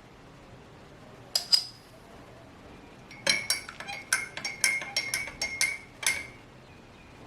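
A metal spoon clinking against the inside of a cup while stirring honey into kahwa: two taps about a second and a half in, then about ten quick ringing clinks, about three a second, from about three to six seconds in.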